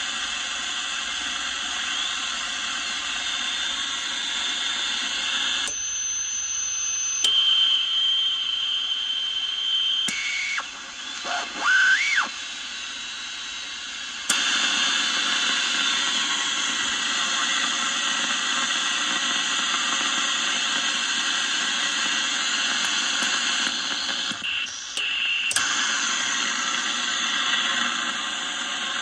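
Static and hiss from a Rycom R1307/GR VLF receiver's speaker as it is tuned across frequencies that carry no stations. There are brief steady whistling tones, a whistle that glides up and down about twelve seconds in where a signal is tuned through, and sudden jumps in the noise as controls are switched.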